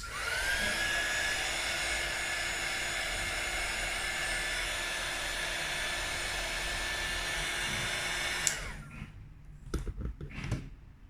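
Hot-air heat gun blowing for about eight and a half seconds, heating the phone's button ribbon connector. Its fan whine rises as it spins up at the start, then it cuts off, and a few light taps and clicks follow.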